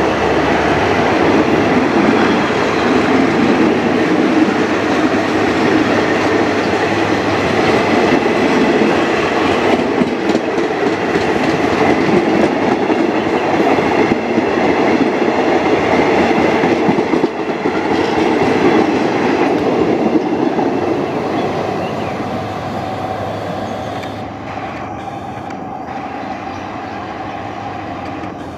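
Passenger train coaches rolling past close by, their wheels running on the rails in a loud steady rumble. The sound fades over the last several seconds as the train moves away.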